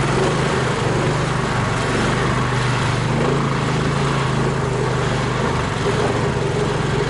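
Engine of a homemade all-terrain vehicle on low-pressure tyres running steadily.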